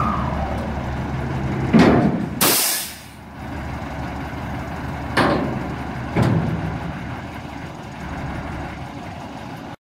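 Dump truck's diesel engine running while its raised bed is lowered after dumping gravel, with a metal clank about two seconds in, a short sharp air hiss just after it, and two more clanks a few seconds later.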